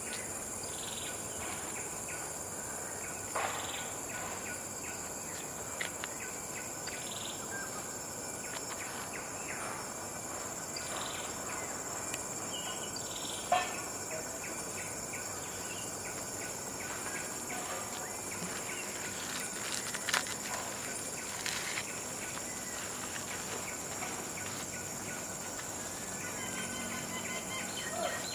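Tropical forest ambience: a steady high-pitched insect drone, with short bird calls scattered throughout and a few sharp clicks, the loudest about halfway through.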